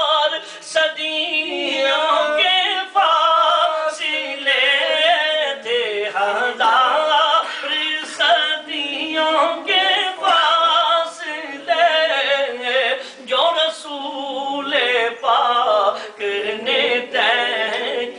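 A man singing a naat solo and unaccompanied, in long, drawn-out, ornamented phrases separated by short breaths.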